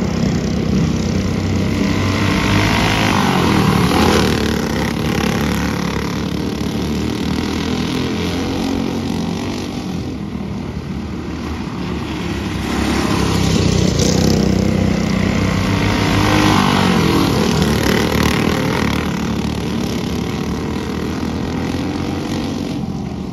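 Small engines of dirt-track racing go-karts running at race speed, the engine note rising and falling as karts pass and pull away several times.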